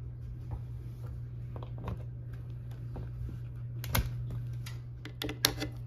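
Sharp plastic clicks and knocks as USB cable plugs are pushed into the ports of a travel power strip, with a cluster of clicks near the end, over a steady low hum.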